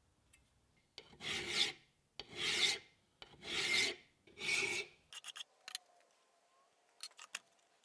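Hand file rasping across the end of a small metal stamp held in a vise: four long strokes, then a few light clicks of metal on metal. The file is cutting shoulders into the stamp's end.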